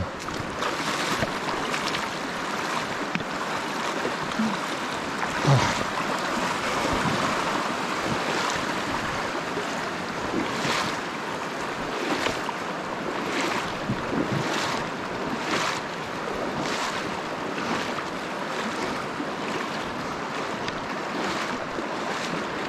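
Wading through a shallow river: steady rushing, sloshing water, with a splashing stride through the water about once a second.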